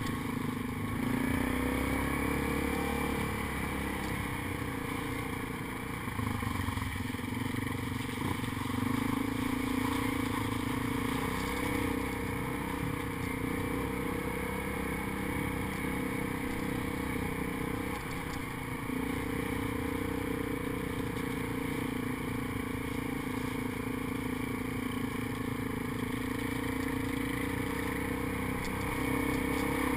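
ATV engine running steadily while riding a rough dirt trail, its note dipping and rising slightly with the throttle at a few points.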